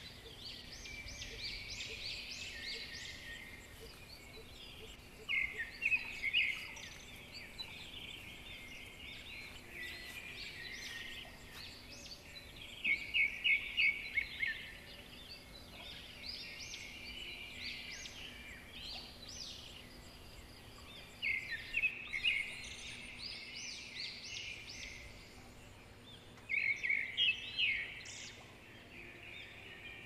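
Birds chirping and calling in a rural morning chorus. A louder run of rapid, stuttering notes breaks in four times, about every seven or eight seconds.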